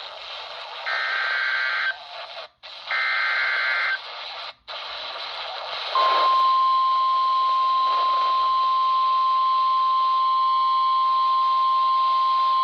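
Weak NOAA Weather Radio broadcast on a RadioShack 12-254 weather radio, with static hiss throughout. Two roughly one-second SAME digital header bursts, the data that encodes the warning, are separated by brief dropouts. About six seconds in, the steady 1050 Hz weather radio alert tone starts and holds.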